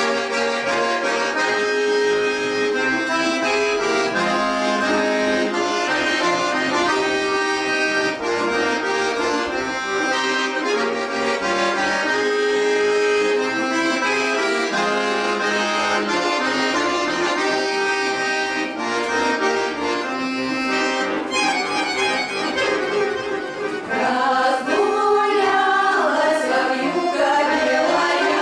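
Accordion playing the instrumental introduction to a Russian folk song, with held chords and a melody. Near the end, a choir comes in singing over it.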